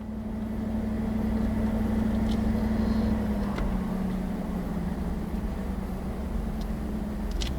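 A road vehicle's engine running as it drives slowly, a steady low hum whose pitch drops slightly about three and a half seconds in.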